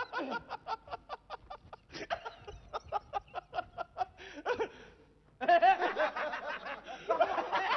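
A person laughing on stage in a rapid ha-ha-ha rhythm for about four seconds. After a short pause comes a louder laugh whose pitch swoops up and down.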